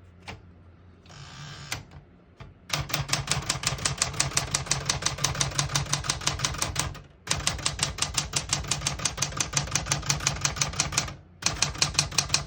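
1974 Smith-Corona Classic 12 portable typewriter typing: after a quiet start, a rapid, even run of type-bar strikes begins about three seconds in and goes on with two short breaks.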